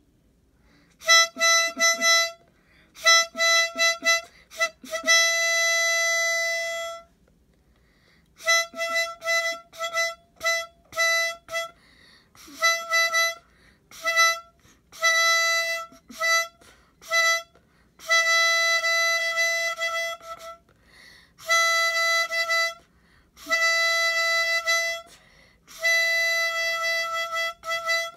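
Harmonica imitating a military bugle call, played as bursts of short tongued notes and longer held notes, mostly on the same high pitch, with short gaps between phrases.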